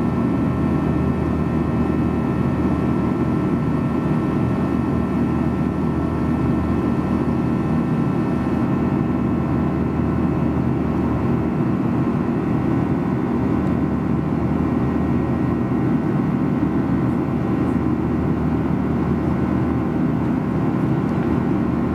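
Cabin noise inside a Boeing 737-800 climbing after takeoff: its CFM56 turbofans and the airflow make a steady low rumble, with a few faint steady whining tones over it. A thin high hiss drops away about eight seconds in.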